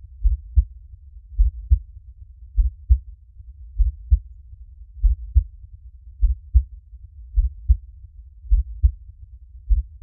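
Heartbeat, slow and steady: paired low thumps (lub-dub), a little under one pair a second, over a faint low rumble.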